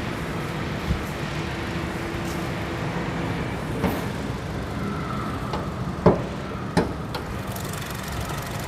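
Honda Brio's 1.2-litre four-cylinder engine idling steadily, with four sharp clicks and clunks as the hood latch is released and the hood is raised; the loudest two come between six and seven seconds in.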